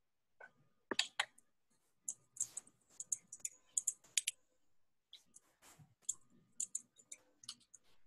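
Computer keyboard being typed on: quick, irregular key clicks in two runs with a short pause a little past the middle.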